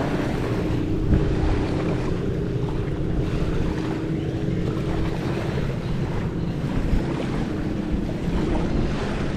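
A motor hums steadily under a rush of wind buffeting the microphone.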